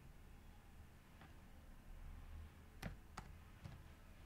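Sparse keystrokes on a computer keyboard: a handful of single, irregularly spaced clicks over near silence.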